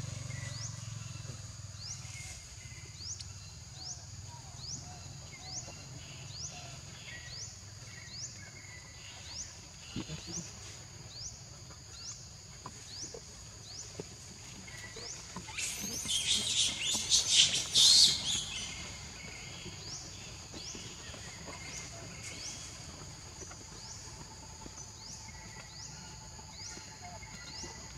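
Steady high-pitched chorus of insects in the forest, with a short rising chirp repeating about every 0.7 s. A much louder high buzzing burst lasts about three seconds a little past the middle.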